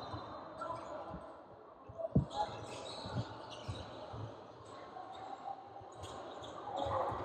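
Basketball bounced on a hardwood gym floor: a few dull thumps, the loudest about two seconds in, over faint voices and the noise of a large gym.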